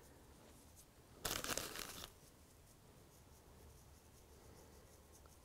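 A short crinkling rustle of a small plastic bag of model-tree leaf scatter being handled, about a second in, lasting under a second; the rest is near silence.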